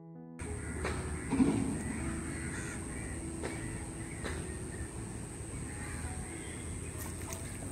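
Outdoor riverside ambience with crows cawing over steady background noise and a constant high-pitched whine.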